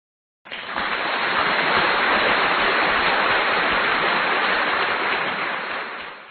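A steady, even rushing noise with no tone or rhythm. It starts about half a second in, after a moment of dead silence, and cuts off abruptly at the end.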